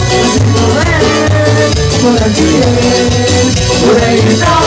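Loud live Latin dance-band music led by electronic keyboard over a pulsing bass line.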